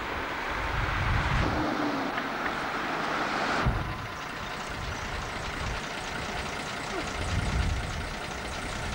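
Fire trucks driving past one after another, engines and tyres rumbling as each goes by, with an abrupt change in the sound about four seconds in where the recording cuts.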